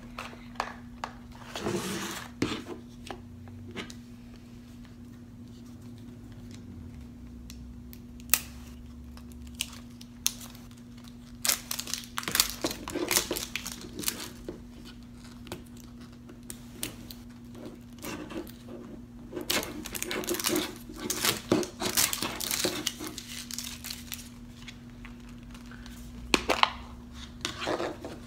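Toy packaging being handled and opened: scattered crinkling, tearing and small plastic clicks, in short clusters, over a steady low hum.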